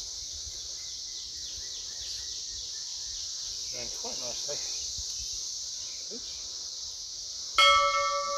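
Insects trilling steadily in a high, even band. Near the end a loud bell-like chime strikes suddenly and rings on, fading slowly: the sound effect of an on-screen subscribe-button animation.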